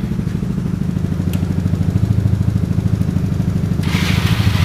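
Yamaha Mio-based four-stroke single-cylinder scooter engine of a custom minibike idling steadily just after an electric start. A brief hiss comes in near the end.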